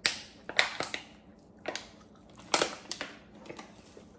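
Cooked crab shells cracking and snapping as meat is picked from them by hand: a string of sharp, irregular cracks, about seven in all.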